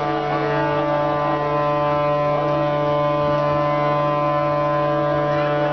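Ship's horn sounding one long, unbroken blast at a ship launch.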